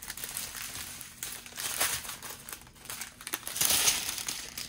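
Clear plastic bags of diamond painting drills crinkling as they are handled, with two louder rustles partway through.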